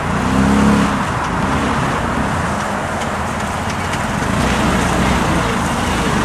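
Linhai CUV 300 UTV's engine running under load as it drives off-road, with a short rise in revs about half a second in, then a steady drone.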